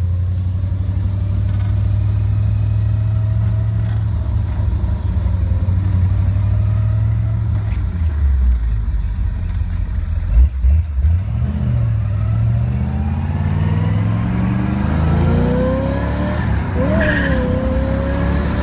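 1964 Corvette's small-block V8 heard from inside the open cockpit while driving: a steady cruising drone, a few uneven jolts about ten seconds in, then the engine note climbing as the car accelerates.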